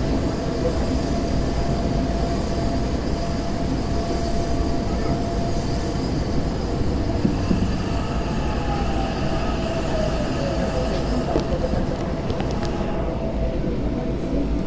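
Subway train noise at an underground platform: a steady low rumble and hum, with a whine that slides down in pitch about halfway through. Near the end the hiss thins out.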